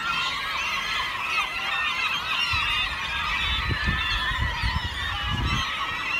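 A large flock of gulls calling all at once, a dense chorus of overlapping squawks and cries from birds feeding on a school of anchovies. A low rumbling noise sets in about two and a half seconds in.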